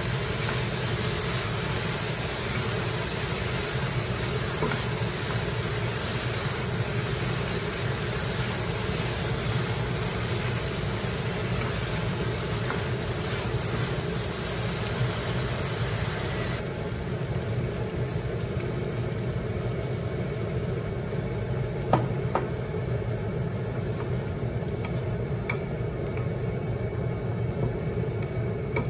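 Pork, okra and mushrooms sizzling in a frying pan as they are stir-fried with a wooden spatula, over a steady low hum. The hiss thins out about two-thirds of the way through, and the spatula knocks against the pan a couple of times.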